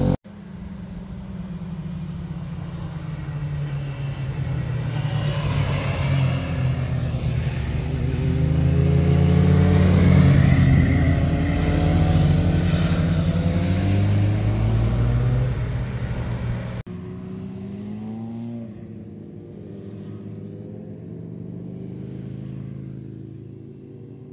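Several motorcycles riding past through a bend, their engine notes rising and falling as they accelerate and change gear. About two-thirds of the way through the sound cuts suddenly to a quieter engine that fades away near the end.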